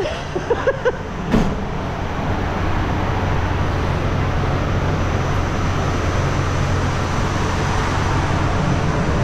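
RB30 straight-six of a VL Commodore running steadily at idle on a chassis dyno: a constant, unchanging drone with no revving. Those present think the engine may still be in cold start.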